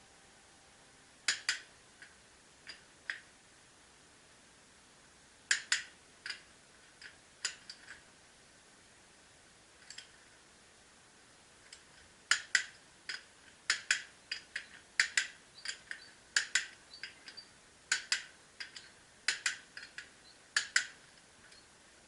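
Irregular sharp clicks and light taps, sparse at first, then coming in quick clusters through the second half.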